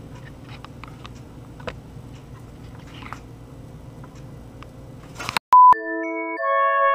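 Quiet room tone with a faint hum and a few faint clicks, broken about five and a half seconds in by a short, loud single-pitch electronic beep. A glockenspiel-like mallet-percussion tune starts right after it.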